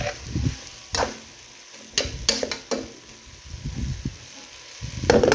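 Breadfruit and seasoning frying in oil in a pot with a steady sizzle, while a spoon stirs and knocks against the pot several times, the loudest knock near the end.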